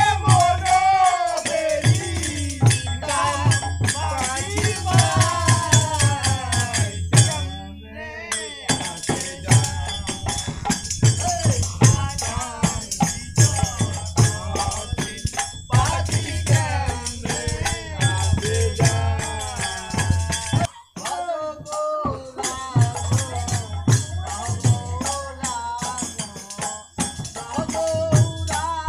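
Men singing a devotional harinam song together, accompanied by small hand cymbals (kartal) jingling in a steady rhythm, a tambourine and a drum. The music dips briefly twice, at about eight seconds and again around twenty-one seconds.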